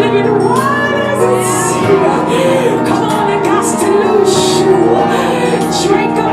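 Church worship music: sustained keyboard chords with voices singing over them.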